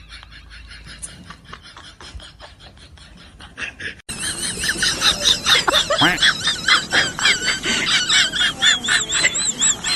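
High-pitched animal squeals repeated in quick succession, faint at first and much louder after a cut about four seconds in.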